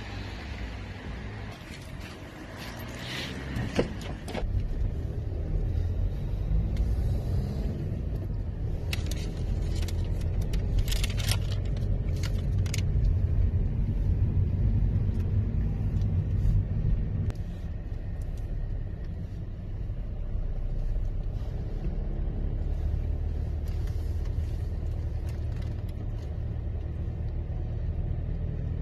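Car driving, heard from inside the cabin: a steady low engine and road rumble, with a sharp knock about four seconds in and scattered clicks and rattles a few seconds later.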